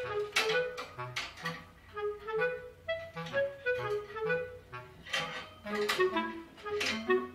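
Background music: a melody of short notes over a steady beat.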